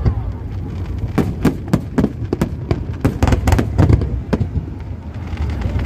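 Aerial fireworks going off: many sharp bangs and crackles in quick, irregular succession over a low rumble.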